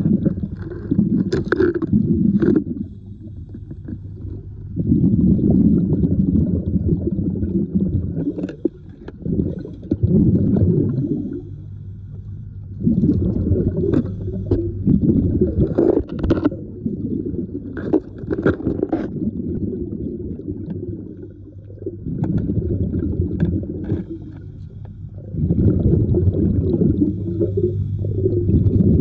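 Muffled water and bubbling as heard through an underwater or water-covered microphone, swelling in surges every few seconds, with scattered sharp clicks.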